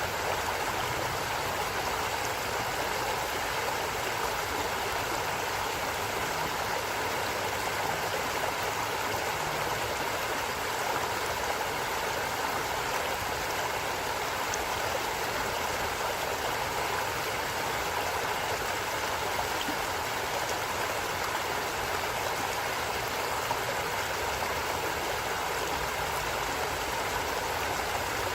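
Flowing stream: a steady, even rush of running water with no breaks.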